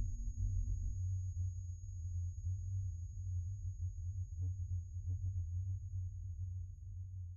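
Low rumbling hum with a thin, steady high whine above it and a few faint ticks about halfway through, fading away at the very end.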